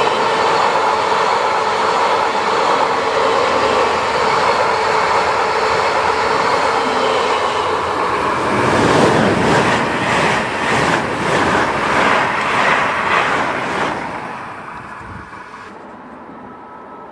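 Electric multiple-unit trains passing close on adjacent tracks, a steady loud rumble with a humming tone from the running gear. About eight and a half seconds in, a rhythmic clatter of wheels over rail joints comes in at about two beats a second as a Stadler FLIRT unit goes by, then the sound fades away near the end.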